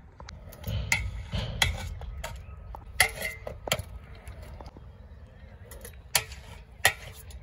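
Freestyle scooter wheels rolling on concrete, with a series of sharp clacks and knocks as the scooter strikes a small rail and the ground during a trick attempt.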